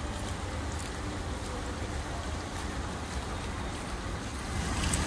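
Water running down a stepped cascade fountain, a steady rushing, with wind buffeting the microphone in a low rumble; it gets a little louder near the end.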